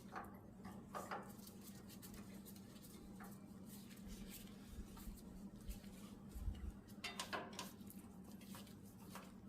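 Faint clicks and light clinks of small metal carburetor parts being handled and fitted, over a faint steady low hum.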